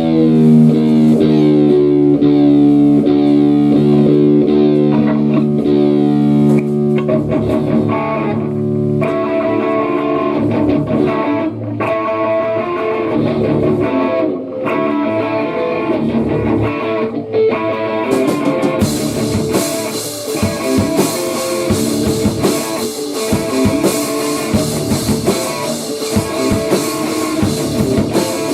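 Rock band playing instrumental grunge: electric guitar opens with long held chords, then moves into a picked riff. Drums with cymbals come in about two-thirds of the way through.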